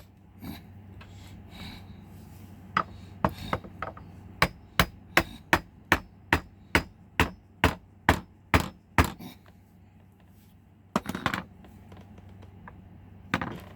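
Hammer blows in a steady run, about two and a half a second for some six seconds, then a few scattered strikes near the end, from a locked safe being forced open.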